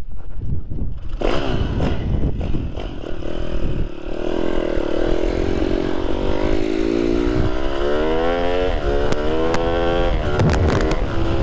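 IMR GP20 pit bike's engine accelerating hard, its pitch climbing as it revs, dropping back at a gear change about two-thirds of the way through and climbing again. A low wind rumble sits under it on the helmet microphone.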